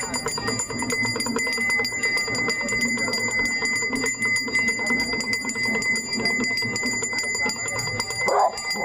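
Brass hand bells of a Ganga aarti rung rapidly and without pause, a dense clanging with a steady high ringing over it. A lower wavering sound, likely chanting voices, runs beneath.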